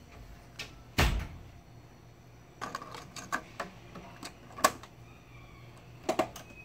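Cassette tape being loaded into the flip-out cassette door of a TEAC V-95RX cassette deck: a thump about a second in as the cassette drops into the holder, a run of light plastic clicks, a sharp click as the door snaps shut, and a quick double click of a front-panel button near the end.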